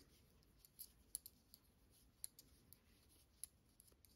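Faint, irregular clicking of metal knitting needles touching as stitches are purled, about two clicks a second.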